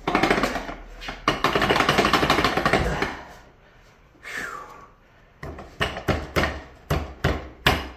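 Metal parts of a Mercury inline-six outboard's crankshaft assembly clattering as the reed-cage bearing carriers are turned by hand to line them up. A rapid rattle of metal clicks lasts about three seconds, then comes a run of about eight sharp knocks near the end.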